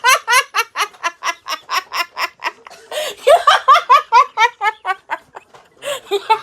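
Puppies squealing and yelping in quick, high-pitched rising yips, about five or six a second, in long runs with a short break in the middle and a pause near the end.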